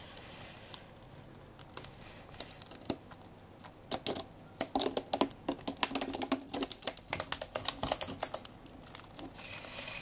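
A budgerigar's claws clicking and tapping on the plastic of a drink-bottle tunnel as it walks along inside. The clicks are sparse at first and come thick and irregular from about four seconds in.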